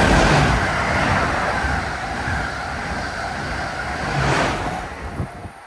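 Amtrak Acela trainset passing a station platform at high speed: a steady rushing roar of wheels on rail and displaced air, loudest as the power car goes by at the start, with a second swell about four seconds in. It cuts off suddenly near the end.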